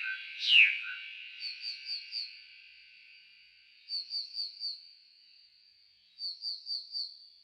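Nightingale song slowed down four times. A loud downward sweep comes right at the start, then three groups of about four short repeated notes over a held high tone.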